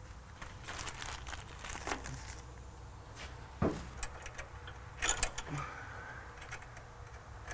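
A few small metal clicks and knocks as nuts are threaded by hand onto the bolts mounting a fuel pump bracket, over a faint steady low hum.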